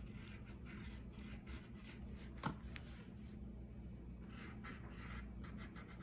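Wax crayon scratching across paper in a series of short curved strokes, with one sharp tap about two and a half seconds in.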